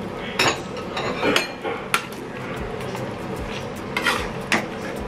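Metal ladle stirring chicken curry in a metal pan, knocking and scraping against the pan in about five separate clinks.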